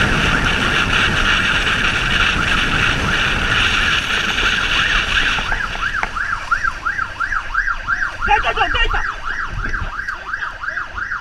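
Police motorcycle riding fast through traffic, with wind and engine noise rushing on the mounted microphone. From about six seconds in, a fast yelp siren warbles rapidly up and down, about three times a second.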